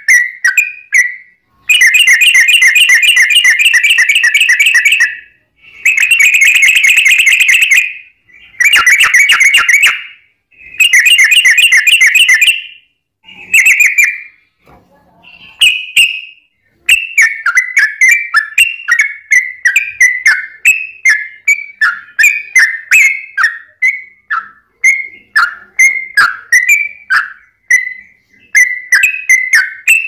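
Yellow-vented bulbul (trucukan) singing. First come four loud rapid trills, each lasting one to three seconds, then a few short phrases. From just past the halfway point it switches to a quick run of short bubbly chirps, about two a second.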